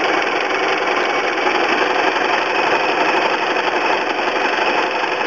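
Sewing machine with an open-toed darning foot running steadily at speed, stitching straight stitch through applique fabric with the feed dogs engaged.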